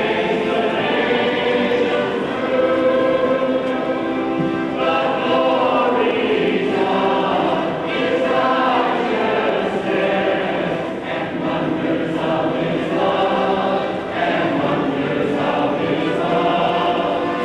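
A choir singing, many voices holding and moving between sustained notes.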